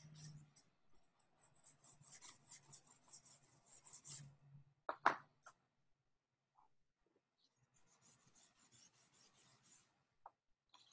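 A drawing stick scratching quick hatching strokes across a small sheet of paper, several strokes a second. A single sharp tap about five seconds in is the loudest sound, followed by a short lull and then fainter strokes near the end.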